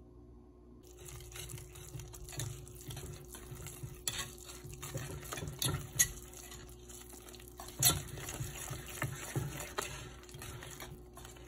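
A wire whisk stirring thick cooked polenta in a metal saucepan, scraping and tapping against the pan, starting about a second in, with a few sharper clinks of the whisk on the pan's side.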